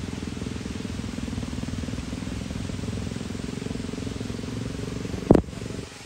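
A vehicle engine running steadily with a low rumble, with one sharp, loud thump about five seconds in.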